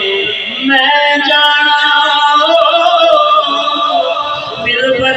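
A man singing solo into a handheld microphone, the voice amplified. From about a second in he holds a long phrase of sustained, wavering notes, and a new phrase begins near the end.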